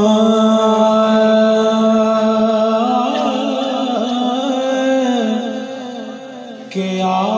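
A man singing a Punjabi naat solo into a microphone. He holds one long note for about three seconds, then ornaments it with quick wavering turns, and the line fades. A new sung phrase begins near the end.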